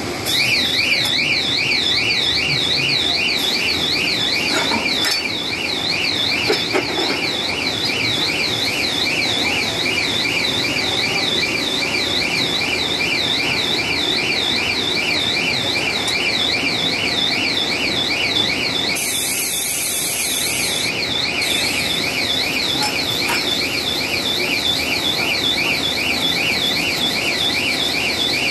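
An electronic alarm warbling up and down about three times a second, over the steady hum of a running stretch film machine. A short hiss comes about two-thirds of the way through.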